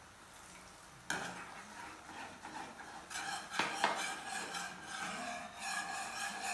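A spoon stirring and scraping food in a wok on a gas stove, clinking against the pan. There is a sharp knock about a second in, and from about three seconds the scraping gets busier, with two loud clanks close together.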